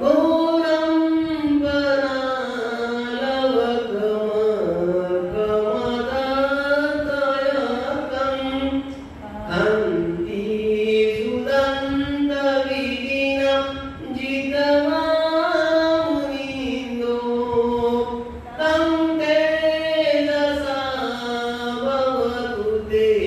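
A man's voice chanting Buddhist devotional verses in a slow, melodic sung style, with long drawn-out phrases and brief pauses for breath about 9 and 18 seconds in.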